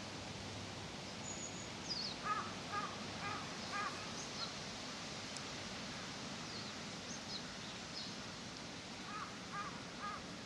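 A crow cawing in two runs of four short caws about half a second apart, one about two seconds in and one near the end. Faint high chirps of small birds sound over a steady outdoor hiss.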